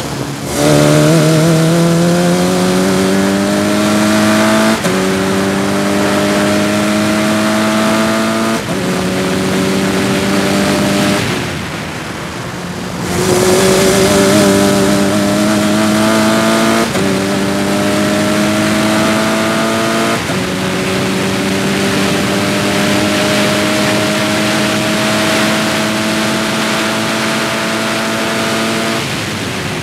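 Sports 2000 race car's four-cylinder engine at full throttle, rising in pitch through two quick upshifts. The throttle is lifted for about two seconds, then the engine pulls again through two more upshifts and one long rising run that drops off near the end, with wind rush over the open cockpit.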